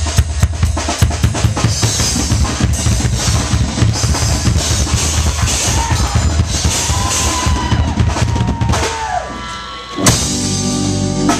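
Live post-hardcore band playing, led by a drum kit hit hard with kick, snare and cymbals. Near the end the sound drops away for about a second, then a loud hit brings the full band back in.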